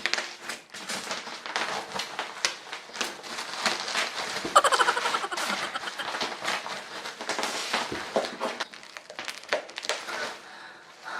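Packaging being wrestled open by hand: dense, irregular crinkling and crackling, with a brief louder squeaky screech about four and a half seconds in.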